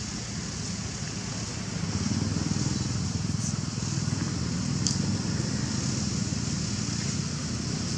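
Steady outdoor background noise: a low rumble that swells about two seconds in and stays, over a constant high hiss, with a couple of faint ticks.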